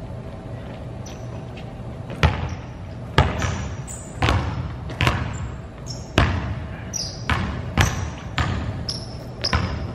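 Basketball bouncing on a gym floor, dribbled about once a second from about two seconds in, each bounce echoing in the large hall, with short high sneaker squeaks between the bounces.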